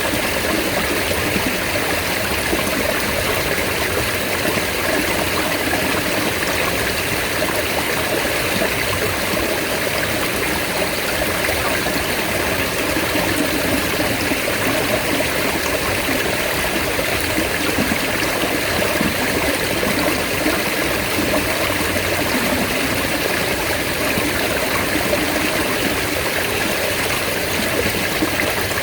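Mountain stream water flowing steadily, an even, unbroken rush.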